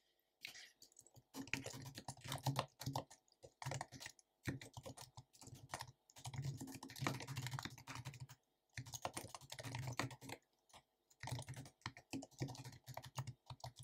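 Typing on a computer keyboard: runs of rapid key clicks broken by short pauses.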